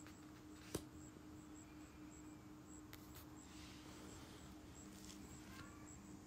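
Near silence: faint room tone with a steady low hum, broken by one sharp click a little under a second in and a few fainter ticks later.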